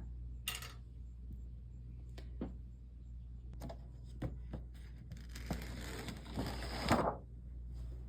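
Scattered light clicks and knocks of handling, then a hiss from about five and a half seconds in that builds to a knock near seven seconds, over a steady low hum.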